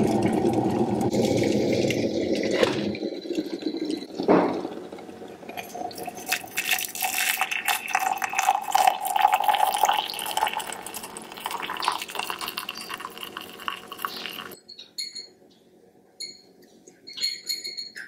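Glass electric kettle at a rolling boil, the rushing stopping about three seconds in, followed by a knock or two. Hot water is then poured into a ceramic mug over a tea bag for several seconds, its pitch rising as the mug fills. A few light clicks near the end.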